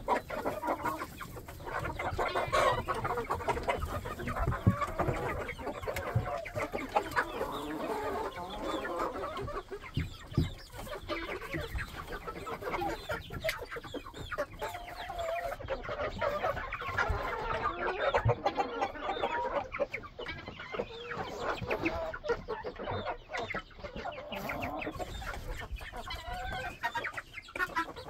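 A flock of chickens clucking, many short calls overlapping without a break.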